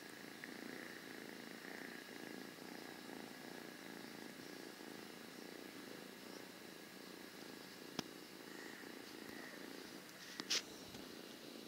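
Cat purring steadily. Two sharp clicks cut in near the end, the second one louder and the loudest thing heard.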